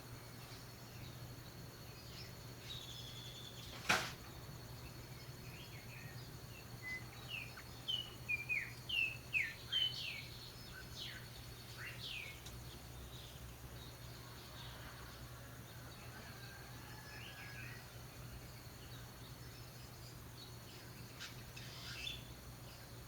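Calandrias (orioles) calling in a run of short, sharp whistled notes that fall in pitch, clustered a few seconds in, with a few more near the end. A single sharp click comes about four seconds in, over a steady low hum.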